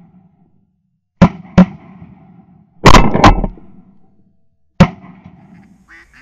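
Shotguns firing at flying ducks: about five blasts within four seconds, the loudest pair about three seconds in, each dying away briefly.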